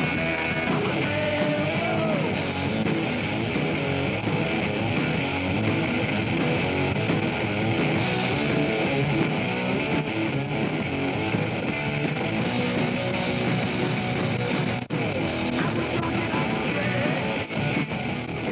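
Rock music soundtrack with guitar, playing continuously, with a brief dropout about fifteen seconds in.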